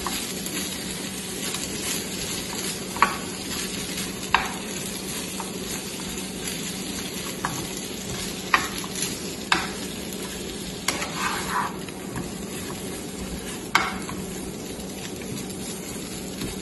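Bell pepper and onion pieces sizzling in olive oil in a frying pan while a spatula stirs them, with a few sharp taps of the spatula against the pan.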